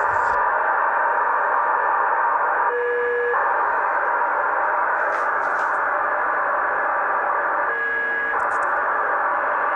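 Amateur satellite receiver audio in USB mode: a steady hiss carrying Nayif-1's continuous 1200-baud BPSK telemetry signal, centred near 1 kHz. Two short tone bursts, about five seconds apart, and a few faint clicks sit on top.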